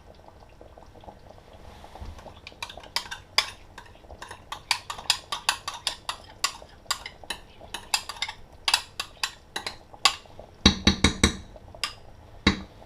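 A spoon stirring sauce in a pot, knocking and clinking against the pot's sides in quick, irregular strokes that start about two and a half seconds in, with a burst of louder knocks near the end as cream is stirred into a simmering curry sauce.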